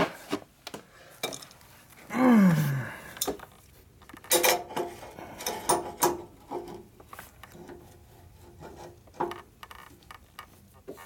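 Metal clicks and clinks of a wrench working a lathe's levelling screw at its foot, turned to put more load on a light corner while levelling the lathe. A short falling pitched sound comes about two seconds in.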